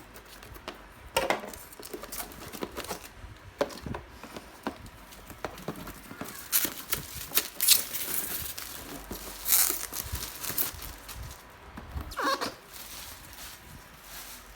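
Packaging and parts being handled: irregular rustling and crinkling with scattered knocks and clicks.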